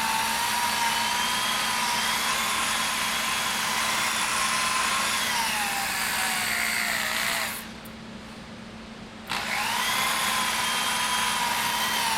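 Electric drill spinning a foam buffing wheel, polishing swirl remover into a drum shell's finish: a steady motor whine that sags in pitch, stops about seven and a half seconds in, and starts up again a second and a half later, quickly rising back to speed.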